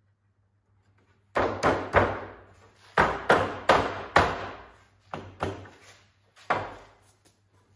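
About ten sharp wooden knocks in irregular clusters, each ringing out briefly, as the rails and stiles of a domino-jointed wooden door frame are knocked together by hand in a dry fit. The first knock comes after about a second and a half of quiet.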